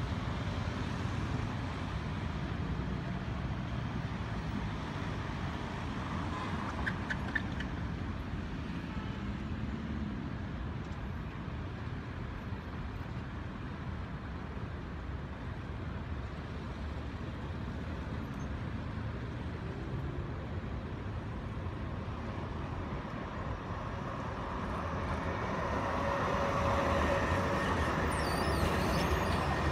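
Road traffic, with cars and a truck driving past steadily. From about 25 seconds in, an electric tram draws close and passes, louder, with a steady hum and a brief high squeal near the end.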